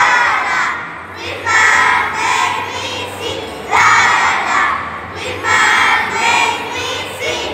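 A group of children singing a Christmas song in unison over a backing track, their voices rising into loud phrases about every two seconds.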